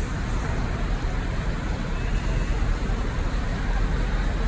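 Steady traffic noise: a low rumble with an even hiss over it.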